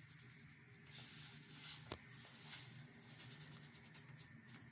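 Faint sounds of a pot of soup boiling on the stove, with a few short scraping noises and one light clink of a metal spoon about two seconds in.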